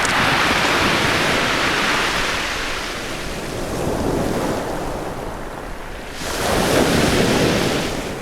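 Ocean waves breaking and washing up a beach: one wave's rush fades over the first few seconds, and another surges in about six seconds in, then recedes.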